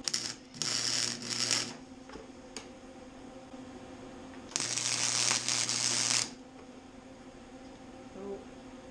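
Welder laying tack welds on a steel flat-bar brace: three bursts of sizzling arc, a very short one, one of about a second, then a longer one of nearly two seconds, each with a low hum under it.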